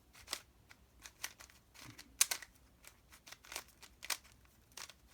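Plastic twisty puzzle cube being turned by hand: irregular sharp clicks and clacks of the layers snapping round, a dozen or more over a few seconds.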